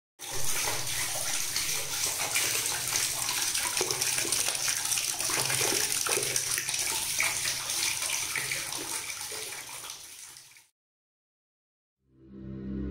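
Water jet splashing over a levitating ball and against tiles: a steady rush of water with a low hum underneath, cutting off about ten and a half seconds in. After a moment of silence, music begins near the end.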